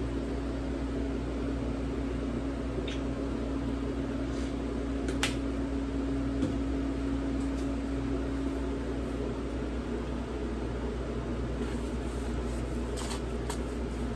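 Steady low hum of a running kitchen appliance, with a held humming tone that drops away about two-thirds of the way through, and a light click about five seconds in.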